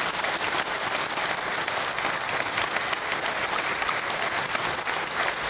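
A crowd applauding steadily: many hands clapping at once.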